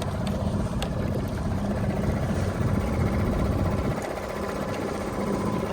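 A small fishing boat under way, running steadily: a constant low rumble with a faint, even motor hum over it.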